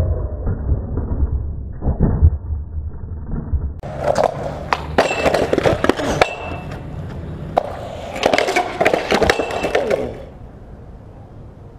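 Skateboard wheels rumbling on concrete, then about four seconds in a run of sharp clattering knocks and scraping as the board and skater hit the concrete and the wooden plank in a failed trick. The clatter stops suddenly about ten seconds in.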